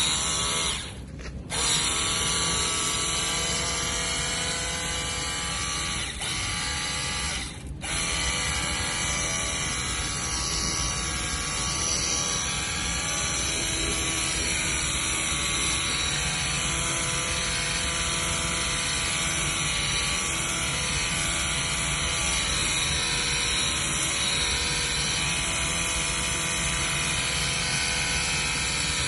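Cordless battery-powered pressure washer running, its electric motor and pump making a steady whine as it sprays. It cuts out briefly twice, about a second in and again near eight seconds, as the trigger is let go, then carries on steadily.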